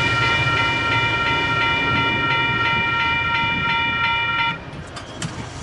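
Railroad crossing bell ringing rapidly, about three strikes a second, over the low rumble of a departing Caltrain train. The bell cuts off about four and a half seconds in, followed by a couple of sharp clicks as the crossing clears.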